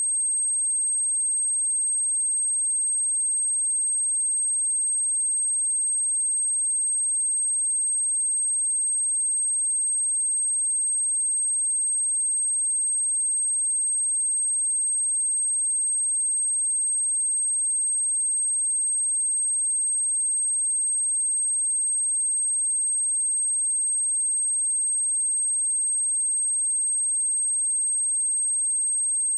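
A steady, high-pitched pure sine tone at 8394 Hz, held at one level without a break: a speaker test tone, also used to shake water and dust out of a speaker.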